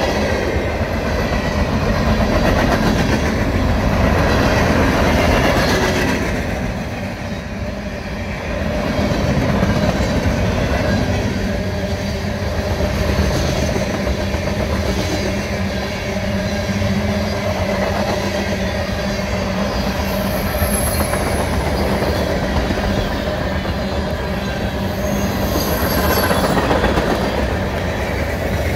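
Freight cars of a Union Pacific manifest train rolling past at close range: a loud, steady rumble of steel wheels on rail. Brief high wheel squeals come twice in the second half.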